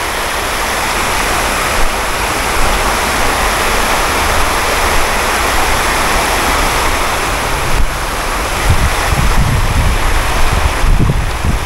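Steady rush of river water spilling over a low concrete weir.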